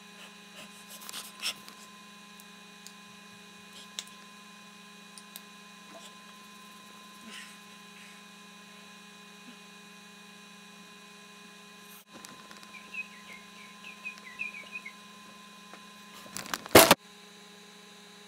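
Steady electrical mains hum with a few faint clicks. About seventeen seconds in comes one loud, brief thump.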